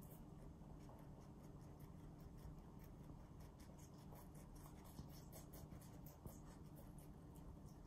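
Rabbits chewing raw leafy vegetables: a fast, continuous run of small crisp crunches, heard faintly over a steady low room hum.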